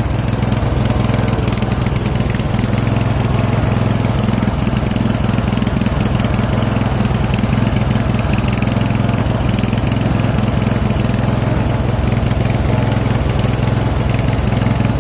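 Riding lawn mower's engine running at a steady speed while the mower is driven along.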